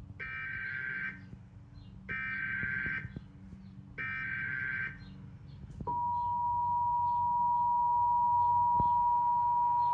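Emergency Alert System SAME header: three bursts of electronic data tones, each just under a second long and about a second apart. About six seconds in, the steady alert attention tone starts and holds. Together they mark the start of a new warning.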